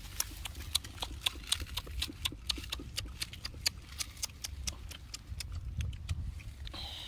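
Close eating sounds: sharp, irregular wet clicks and crackles, several a second, as roasted duck is chewed and torn apart by hand.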